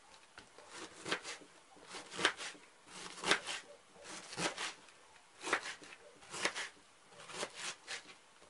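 Kitchen knife slicing through a head of white cabbage onto a plastic cutting board, a crisp crunch about once a second.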